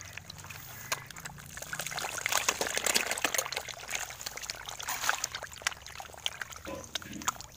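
Fish thrashing at the surface of a water-filled bucket: a busy patter of small splashes and trickling water.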